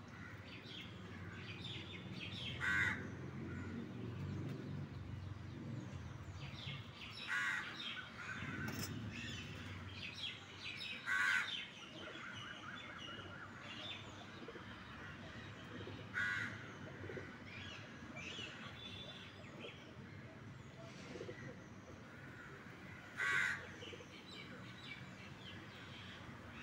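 Crows cawing: five loud calls spaced several seconds apart, with fainter bird chirps in between.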